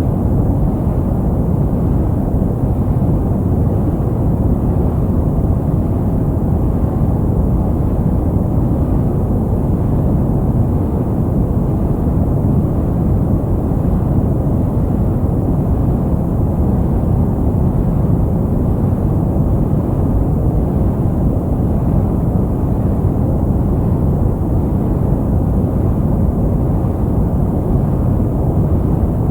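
Steady white noise for sleep in a deep, low-pitched form: an even rumbling hiss with most of its weight in the bass and little treble, unchanging throughout.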